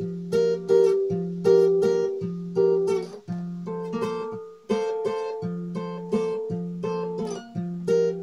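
Guitar strummed in chords at a steady rhythm of about two strokes a second, with a brief pause about four and a half seconds in.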